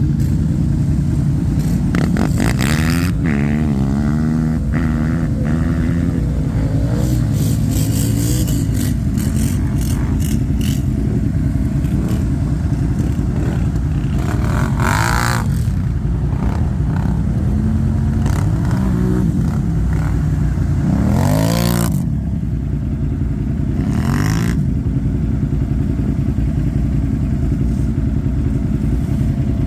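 ATV engines running steadily and revving, their pitch rising and falling several times over a constant low rumble.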